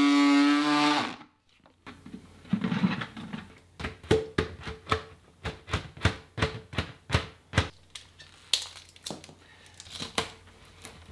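Handheld electric cutters buzzing steadily as they cut through a thin clear plastic keg liner, stopping abruptly about a second in. Then irregular sharp clicks and knocks of the plastic liner being handled and pressed together.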